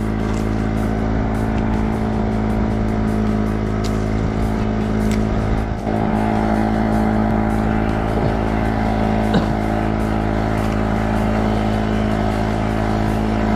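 A small engine on a wooden outrigger fishing boat running steadily at one speed, an even hum that does not change, with a few light clicks over it.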